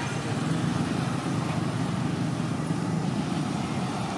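Steady low rumble of nearby road traffic.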